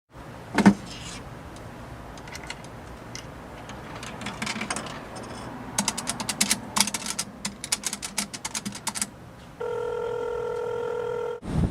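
Payphone being dialled: a loud clunk of the handset, then clicking keypad button presses, coming quickly near the middle. Then a steady ringing tone sounds in the earpiece for about two seconds near the end as the call rings through.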